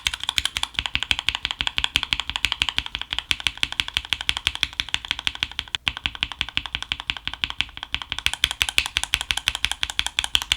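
Fast, continuous typing on a mechanical keyboard fitted with Gateron yellow linear switches, the Gateron G Pro yellow and the original Gateron yellow, in a sound test, about ten keystrokes a second, with a brief break a little past halfway.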